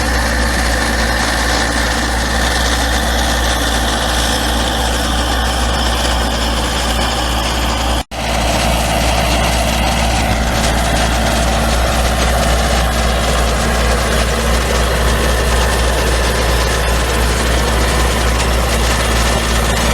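Engine of construction machinery running steadily at a low idle-like drone, cutting out for an instant about eight seconds in.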